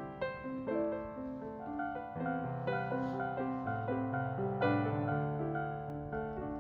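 Background piano music: a melody of notes changing every fraction of a second over held low bass notes.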